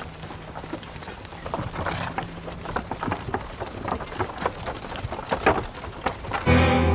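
Horses' hooves clip-clopping in an uneven run of strikes. Music comes in near the end.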